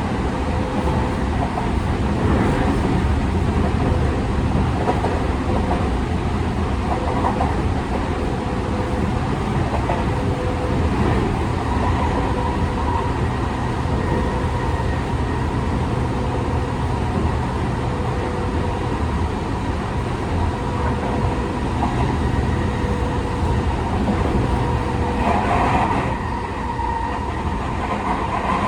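Tokyu 5000 series electric train heard from inside a motor car while running: a constant rumble of wheels on rail with steady whining tones from the Hitachi IGBT-VVVF drive and TKM-98 traction motors. Louder rattles come now and then, most strongly near the end.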